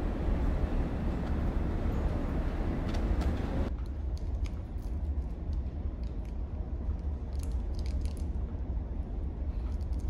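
Steady low drone of a ferry's engines, with a hiss that cuts off suddenly about four seconds in. Light crinkles and clicks of a small plastic soy sauce packet being handled and torn open follow.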